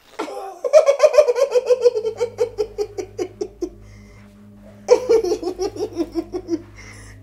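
A woman laughing heartily in two long bouts of rapid ha-ha pulses, each bout falling in pitch as it runs on.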